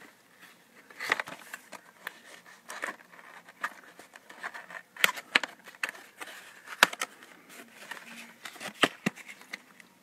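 Cardboard DVD box sleeve being handled and pried open by hand: scattered taps, clicks and scraping rustles of the card.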